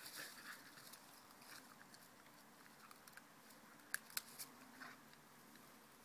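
Faint rustling and crackling as a golden retriever puppy bites and drags a leafy plant stem through grass, with two sharp clicks just after four seconds in.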